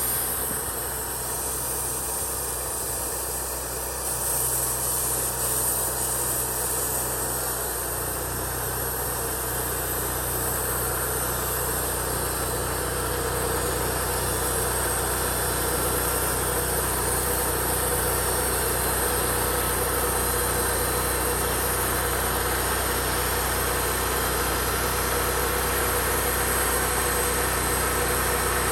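An engine running steadily, with a slight change in its low note about eight seconds in.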